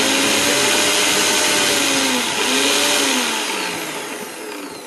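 Preethi Diamond mixer grinder's motor spinning an empty steel jar's blade at speed, a test run after the jar's bearing was replaced. After about three seconds it slows and fades, its pitch falling as it winds down.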